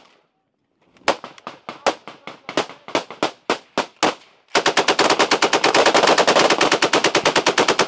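Single gunshots, about three a second, are followed about four and a half seconds in by an M240B 7.62 mm belt-fed machine gun firing a long continuous burst at close range, laying down suppressive fire.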